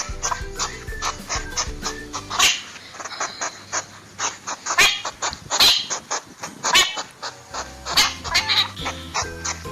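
Hedgehog sounds: a quick run of short, noisy bursts, loudest in the middle stretch, over light background music.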